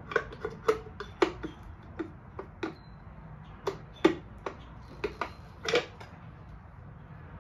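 Irregular metallic clicks and clinks of hands working at the exposed starter gears of a 50cc Chinese quad engine, checking the newly mounted starter for anything rubbing. The clicks stop about six seconds in.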